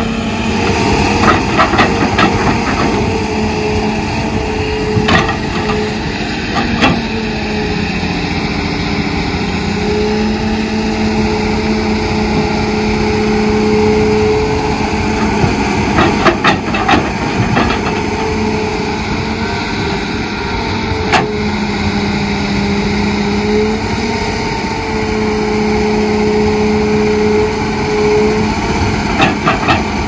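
Excavator's diesel engine running under load, its pitch dipping and recovering repeatedly as the hydraulics work, with scattered sharp knocks and clanks.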